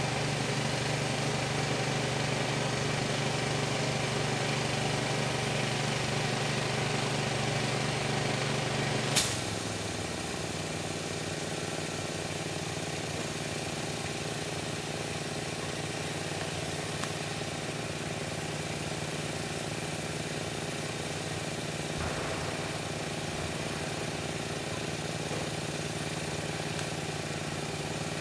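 Gas pressure washer engine running steadily, with a hiss of spray over it. About a third of the way in a sharp click is heard, after which the engine note drops and the hiss is weaker.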